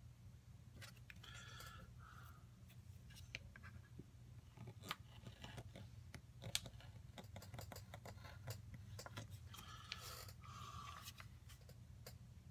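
Utility knife taking small cuts through leather on a cutting mat: faint scratchy cuts and light clicks of the blade against the mat, over a low steady hum.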